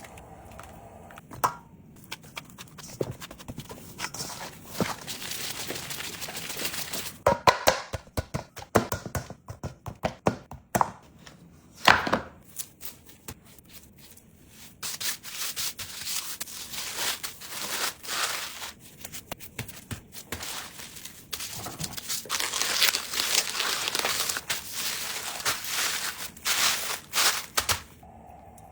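Food-prep handling sounds: irregular knocks and thuds, a run of sharper knocks near the middle, then a long stretch of rustling and crinkling like packaging being handled.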